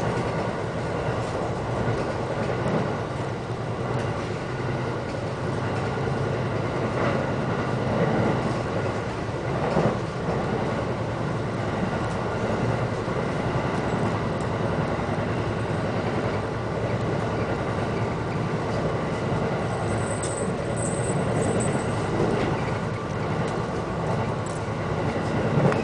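Steady running noise inside a two-car electric train carriage: the rumble of wheels on rail and the car's running gear while the train travels between stations. About twenty seconds in, a brief faint high squeal sounds over the rumble.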